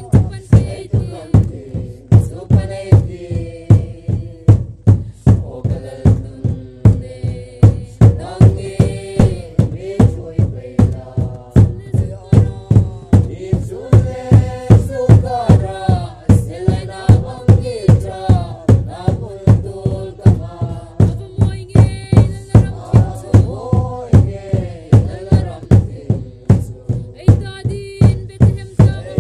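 Lengkhawm-style Christmas hymn sung by a group of voices, kept in time by a large drum struck steadily about twice a second.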